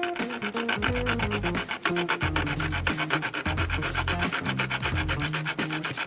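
X-Acto razor saw cutting through a plastic model-car part with quick, even back-and-forth strokes, a steady rasping.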